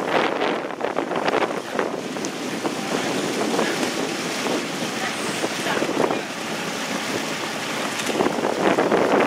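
Wind buffeting the microphone over rushing water, with irregular gusty bursts.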